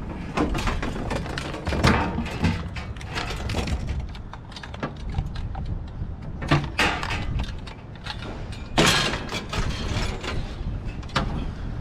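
Scrap metal being wrestled down and shifted: a series of clanks, knocks and scrapes, the loudest a longer grinding scrape about nine seconds in.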